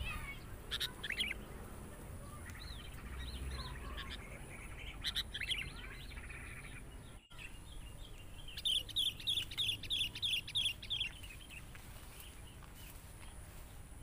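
High bird-like chirps: a few single chirps in the first half, then a quick run of about ten, some four a second, a little past the middle.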